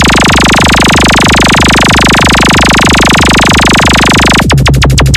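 Loud electronic DJ sound-check music: a dense synth texture over pulsing bass, which about four and a half seconds in switches abruptly to a fast run of sharp clicks over a deep bass tone.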